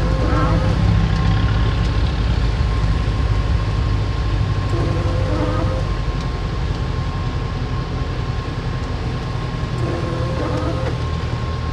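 A vehicle engine running steadily at low revs, a deep even rumble throughout. Short snatches of faint voices come in near the start, midway and near the end.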